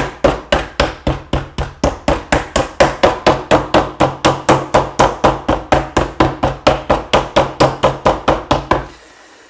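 Schnitzel cutlets being pounded flat with the flat side of a meat mallet on a wooden cutting board: a fast, even run of strikes, about four a second, that stops near the end.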